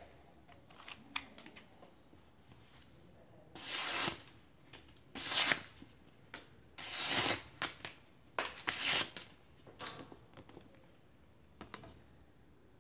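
Paper being sliced by a long hand-forged knife blade: about four short rustling cuts with paper crinkling and small clicks between them, the paper-cutting test of the edge's sharpness.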